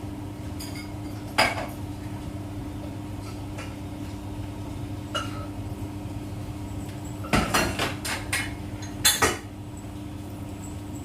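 Siemens iQ700 washing machine running with a steady hum, broken by irregular metallic clanks and knocks, most of them in a cluster about seven to nine seconds in. This is the drum noise fault that calls for replacing the drum.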